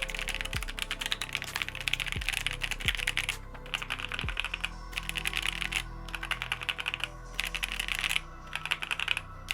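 Rapid typing on a Vega 65 custom mechanical keyboard fitted with JWK Oolong switches, with a few short pauses in the second half.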